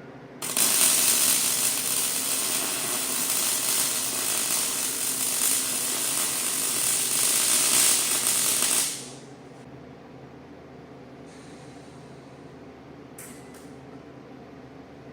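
Stick welding arc crackling and sizzling for about eight seconds, striking suddenly and cutting off abruptly as the rod is pulled away. A low steady hum continues after the arc stops.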